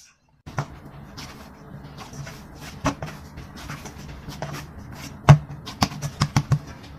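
Hands kneading and pressing glutinous rice dough in a stainless steel bowl: soft rubbing and working of the dough, starting about half a second in, over a steady low hum. Sharp knocks against the metal bowl come now and then, the loudest about five seconds in, followed by several in quick succession near the end.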